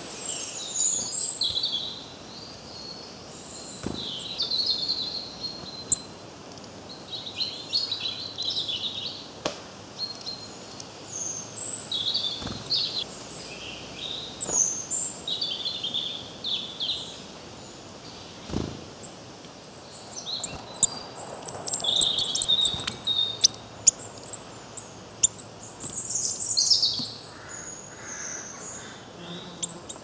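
Small woodland songbirds chirping and calling: many short, high chirps and quick trills in irregular bursts. A few sharp taps stand out between the calls.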